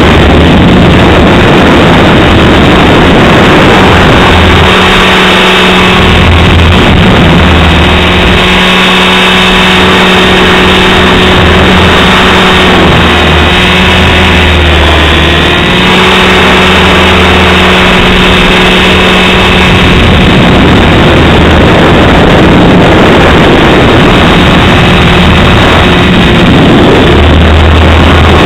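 Align T-Rex 550 electric RC helicopter in flight, its rotor and motor giving a steady whine held at a governed 2450 rpm head speed, with a brief dip in pitch about halfway through. Heavy gusting wind buffets the microphone throughout.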